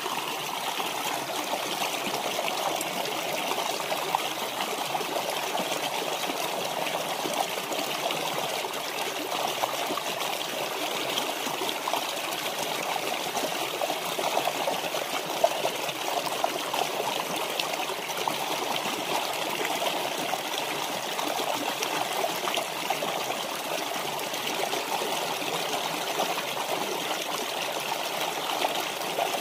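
Shallow rocky stream flowing and rippling over stones: a steady babble of running water.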